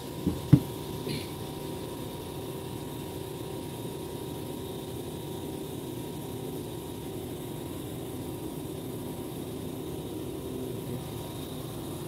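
Steady low mechanical hum with a faint constant whine above it, and two sharp knocks about half a second in.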